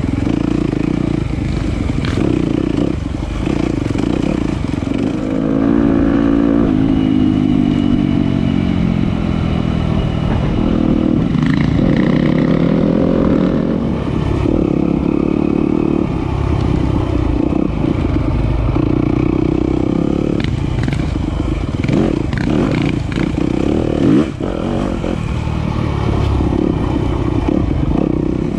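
Single-cylinder enduro dirt bike engine running hard, its pitch rising and falling as the throttle is worked over rocky ground. Sharp knocks and clatter break in throughout, one loud hit about three-quarters of the way through.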